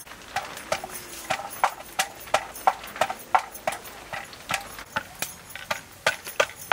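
Garlic cloves being crushed with a round hand-held stone on a wooden cutting board: a steady run of sharp knocks of stone on wood, about three a second.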